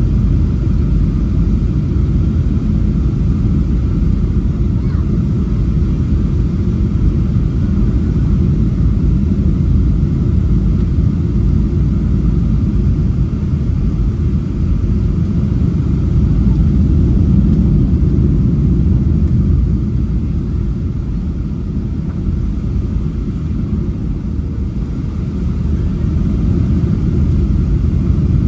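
Steady low rumble of engine and airflow noise inside the cabin of a Boeing 737-800 with CFM56-7B turbofans, heard by the window over the wing as the airliner descends to land. It eases a little about twenty seconds in and builds again near the end.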